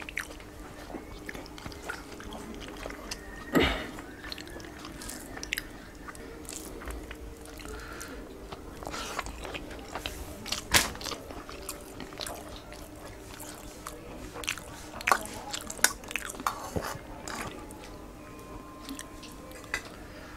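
Chewing and wet mouth sounds of a man eating rice and curry with his hand, with scattered short clicks and a few louder smacks.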